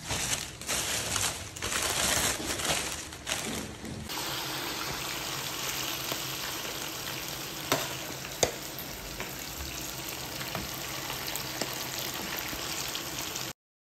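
For about the first four seconds, a plastic carrier bag rustles and crinkles. Then pieces of chicken sizzle steadily as they deep-fry in hot oil, with two sharp clicks of a spatula against the pan partway through. The sound cuts off just before the end.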